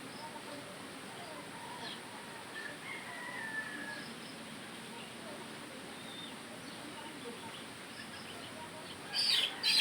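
A rooster crowing in the distance, one drawn-out call about three seconds in, over steady outdoor background. Near the end a small bird chirps loudly several times in quick succession.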